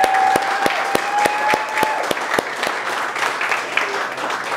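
Audience applauding, with one person's sharp claps close to the microphone at about three a second. A long held whoop rides over the first two seconds, and the clapping thins out near the end.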